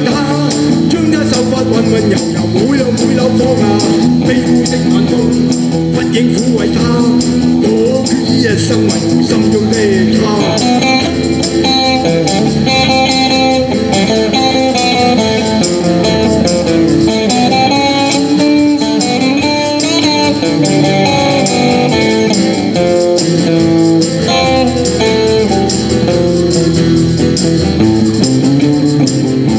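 A small live band playing an upbeat song: electric guitar and a second guitar over a drum kit, with hand percussion. A melodic lead line comes in about ten seconds in and carries on over the band.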